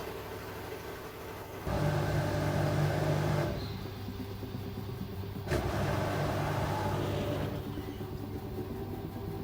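LG 8 kg washing machine running: a steady motor hum that steps louder and quieter every two seconds or so, with a sharp click about five and a half seconds in.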